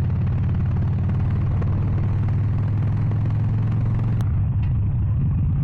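Harley-Davidson Sportster XL 883 Iron's air-cooled V-twin engine running at steady, even revs while riding, a low engine note that holds constant. A brief click about four seconds in.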